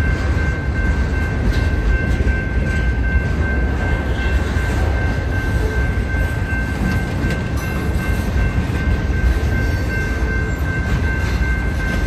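Freight train of boxcars rolling past close by: a steady heavy rumble of steel wheels on the rails, with a thin, steady high-pitched tone ringing over it.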